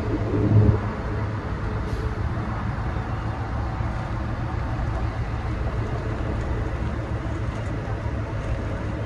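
Steady low rumble of a vehicle driving, heard from inside it: engine and road noise, with a brief louder swell about half a second in.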